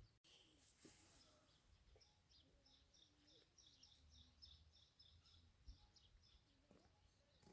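Near silence with faint bird chirping: a quick run of short, high chirps, several a second, that starts about a second in.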